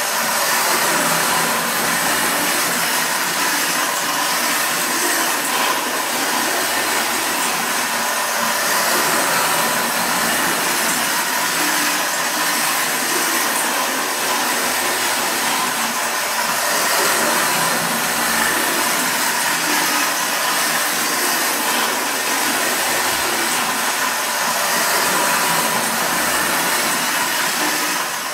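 Battery-powered Distler H0 toy trains running on sectional track: the steady whir of their small electric motors with the running noise of the wheels on the rails.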